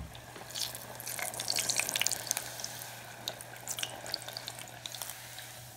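Carimañolas (yuca fritters) deep-frying in hot oil, a steady sizzle full of sharp crackles and pops. It is busiest in the first couple of seconds and then settles a little, over a low steady hum.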